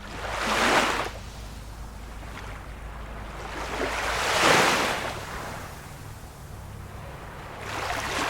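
Small waves of a calm sea washing in, three surges about four seconds apart, over a faint steady low hum.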